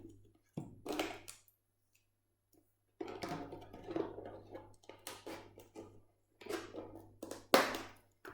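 Thin plastic bottle being cut with a knife and scissors to make a hole in its side: irregular crackling, creaking and clicking of the plastic. The sharpest, loudest crack comes about three-quarters of the way through.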